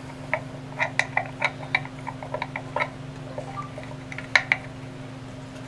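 Light clicks of small recoil-starter parts being handled as the pawl and its little spring are seated on the pulley of a snowmobile recoil starter: a quick run of clicks in the first three seconds and two sharper ones about four and a half seconds in, over a steady low hum.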